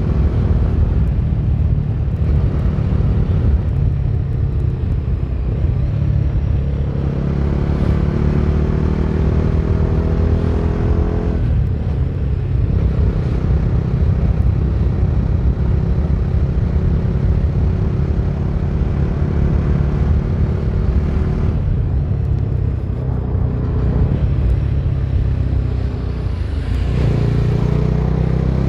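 Bajaj Dominar 250's single-cylinder engine running while riding, its pitch climbing steadily and then dropping back sharply about three times as the rider works the throttle and gears.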